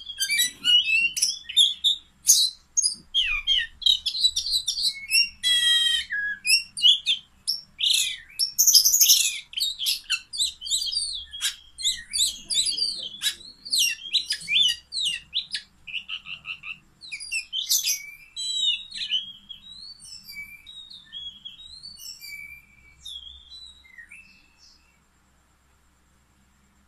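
Oriental magpie-robin (kacer) singing a loud, varied song of whistles, chirps and fast rattling trills, growing sparser after about 20 s and stopping a couple of seconds before the end.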